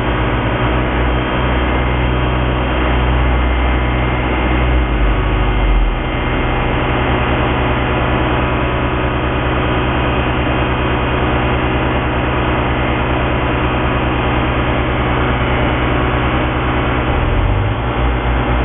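Engine of a snow-clearing machine running steadily, with a dense, even hum over a low rumble that shifts slightly about six seconds in.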